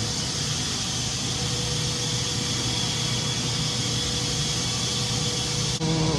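Steady rushing background noise with a faint constant hum. Near the end it cuts off abruptly and a louder sound made of steady held tones takes over.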